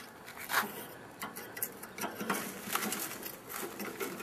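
Burning charcoal in a grill crackling, with irregular clicks as the lit coals are stoked and spread apart.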